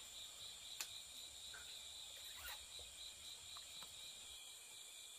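Faint, steady high-pitched trilling of insects, with a single sharp click just under a second in.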